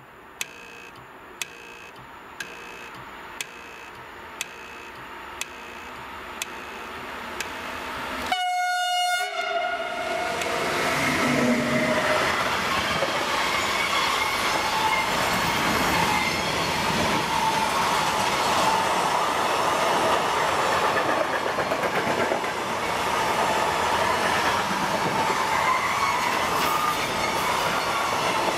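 A Siemens Eurosprinter electric locomotive hauling a container freight train sounds its horn about eight seconds in. The train then passes close by with steady wheel-on-rail clatter from the container wagons. Before the horn there is a regular tick about once a second.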